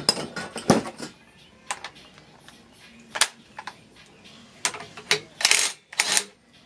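Irregular metallic clicks and clinks of hand tools on steel engine parts, working a bolt out of an LS V8 crankshaft. Two longer rasping, scraping sounds come a little after the five-second mark.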